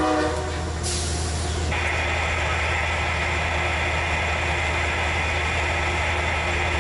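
Amtrak passenger train standing or creeping past: a steady low diesel hum with a short burst of air hissing from the brakes about a second in, followed by a steady high-pitched whine.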